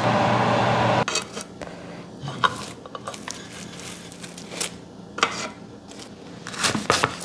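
A wok of stir-fry sizzling for about a second, then it cuts off suddenly. Scattered light clicks and taps of kitchen tongs against a plate follow, with a knife slicing on a wooden cutting board near the end.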